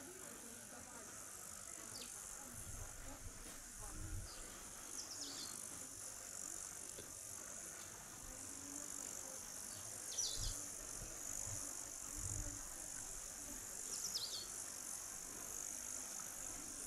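Insects chirring steadily in summer grass, a thin high buzz that never stops. A short high falling chirp cuts in now and then, about every four seconds, with faint low rumbles underneath.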